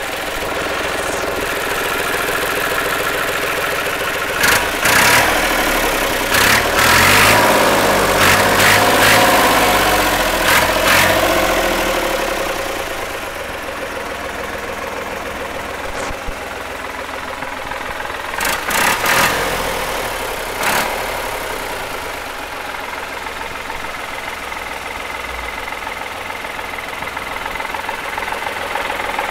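Fiat 55-66 DT tractor's diesel engine running steadily at idle, with bursts of louder noise a few seconds in and again past the middle.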